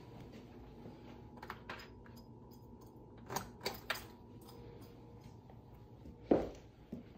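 A few light clicks and knocks, then one louder thump about six seconds in, over a faint steady hum.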